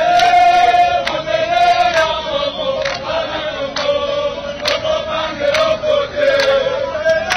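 A crowd of protesters singing together in unison: a slow chant held on long, wavering notes.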